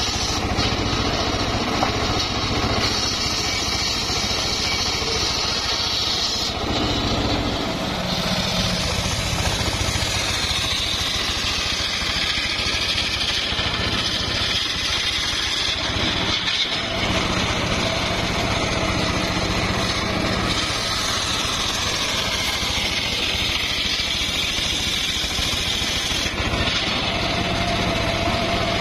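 Homemade engine-driven circular saw bench running under load, its spinning blade ripping lengthwise through timber over the engine's steady drone. A high whine from the blade shifts in strength several times as the wood is fed through the cut.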